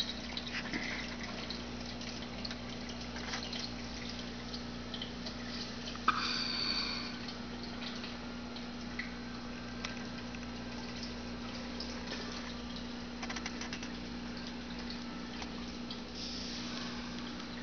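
Home aquarium running: air bubbles trickling and splashing at the water surface over the steady hum of the pump. A brief louder sound with a squeaky ring about six seconds in.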